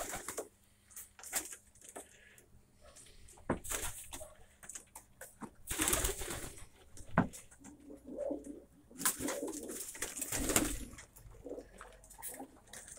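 Domestic pigeons cooing softly on their perches, with several louder rustles and scuffles scattered through, the biggest about three and a half, six, and nine to ten seconds in.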